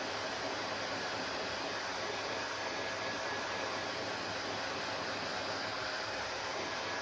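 Hair dryer running steadily: an even rush of blown air with a faint high whine from its motor.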